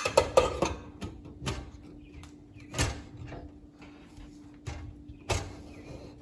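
Metal pressure cooker being handled, with its lid fitted and closed: irregular knocks and clicks, a sharp one about three seconds in and another near the end. A steady low hum runs underneath.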